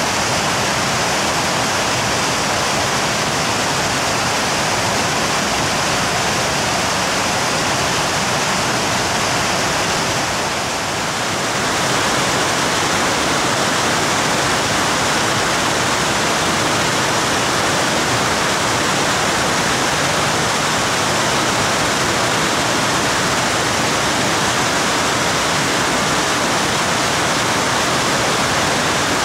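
Waterfall in full spate after heavy, prolonged rain: a loud, steady rush of falling water that dips slightly for a moment about ten seconds in.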